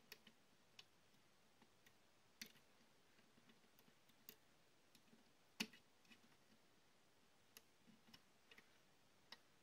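Faint, scattered clicks and ticks of a crochet hook against the plastic pegs of a rubber-band loom as the rubber bands are hooked and lifted, the loudest a little past halfway; otherwise near silence.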